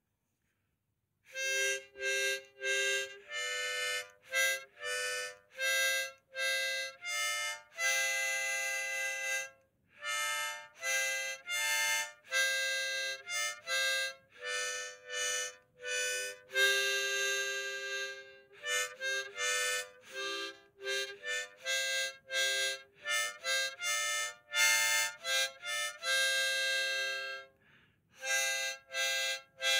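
Background music: a melody of short, separate notes, beginning about a second in.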